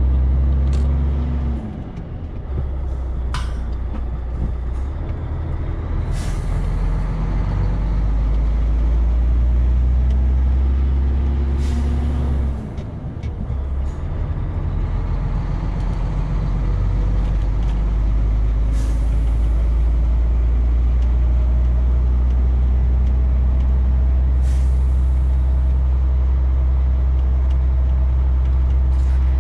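Volvo FH12 truck's diesel engine running steadily on the road with a deep hum. The engine note falls and briefly dips twice, about two seconds in and again about thirteen seconds in, and a few short hisses come and go.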